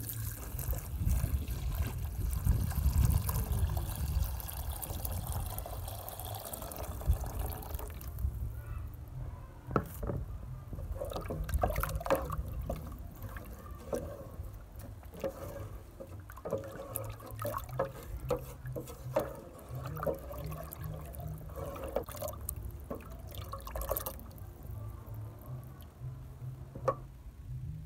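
Coconut milk poured from a plastic basin into an aluminium pot of cooked cassava leaves, a steady rushing pour for about the first eight seconds. After that a wooden spoon stirs the thin green mixture, sloshing it, with scattered knocks against the pot.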